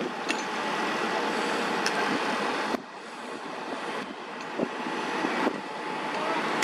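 Fire service pump trucks running their pumps: a steady engine and pump noise, which drops suddenly about three seconds in and then builds back up.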